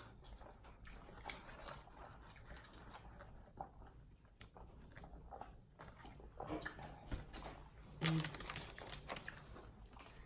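Close-miked chewing and biting of a turkey submarine sandwich: soft, moist mouth clicks and crunches. A louder short sound comes about eight seconds in.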